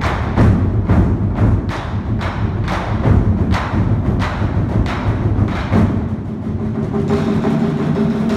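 A school drum team beating a row of large drums together in a steady pulse of about three strokes a second. In the last couple of seconds the strokes thin out and a steady ringing tone comes in.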